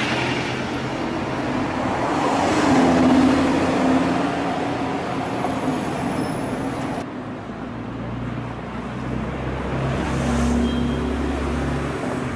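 Lamborghini Huracán's V10 driving off through city traffic, swelling to its loudest about three seconds in. After a cut about seven seconds in, a Porsche 911 GT3's flat-six runs low in traffic, rising briefly in revs about ten seconds in.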